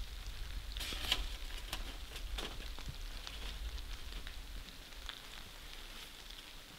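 Rain falling steadily, a soft hiss with scattered sharp taps of drops, the densest about a second in.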